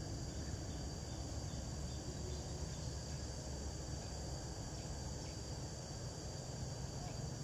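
A steady, high-pitched chorus of insects trilling without a break, over a low rumble.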